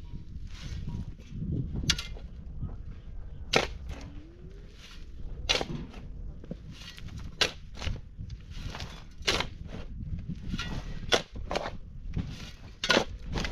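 Pickaxe striking dry, stony ground, with a sharp hit about every two seconds and loose dirt and stones crunching between blows.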